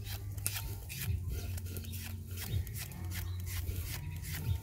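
Red onion being pushed across a handheld blade slicer, a short rasping slice with each stroke, about two or three a second, over a steady low hum.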